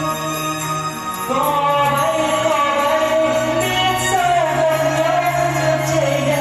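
Music: a Vietnamese song, its melody in long held notes that glide in pitch over a steady low accompaniment.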